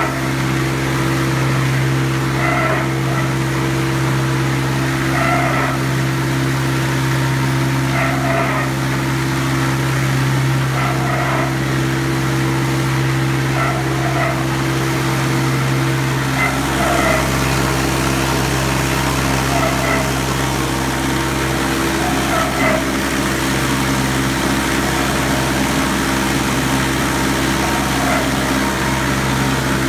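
Bowl cutter running as its bowl turns and its knives chop liver sausage mass: a steady machine hum, with a fainter sound recurring about every three seconds. A lower rumble joins about halfway through.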